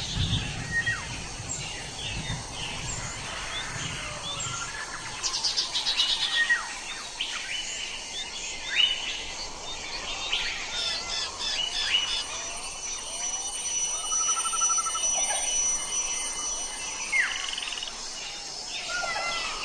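Several wild birds chirping, whistling and trilling, a mixed dawn-chorus-like chatter of short calls over a steady faint hiss, with a brief low rumble in the first few seconds.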